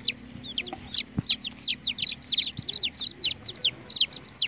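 Baby chicks peeping: a rapid, continuous run of short, high peeps, each falling in pitch, several a second.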